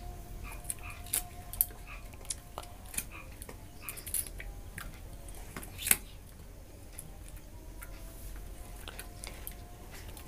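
A blade cutting into and scraping out small green gumukh fruits: scattered light clicks and scrapes, with one sharper click about six seconds in.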